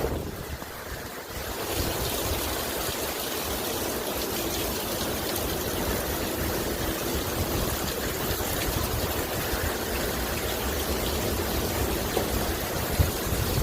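Hurricane wind blowing hard and buffeting the microphone with a steady, loud rushing rumble. It eases briefly about a second in, then picks back up.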